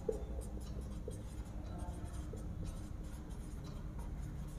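Marker pen writing on a whiteboard: a run of short, quick strokes as words are written out.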